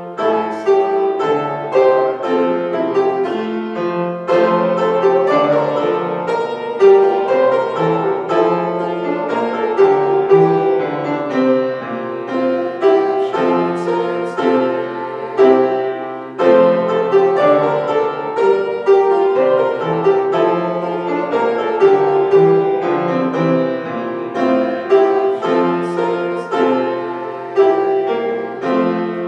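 Grand piano played solo: a continuous run of chords and melody notes.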